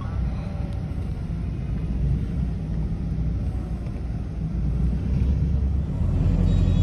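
Low, steady rumble of a vehicle's engine and road noise heard from inside a moving vehicle, growing louder about six seconds in.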